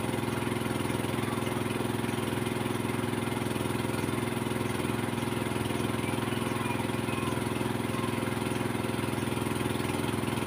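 An engine running steadily at a constant idle-like speed: a continuous, even low hum.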